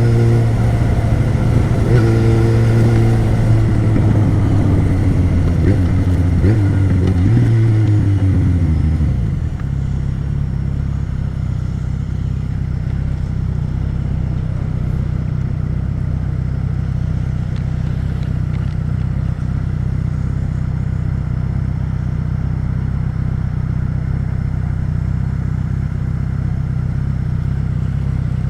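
Yamaha XJ6's 600cc inline-four engine running under way, the revs jumping about two seconds in and then falling as the bike slows. From about nine seconds in it settles into a steady idle.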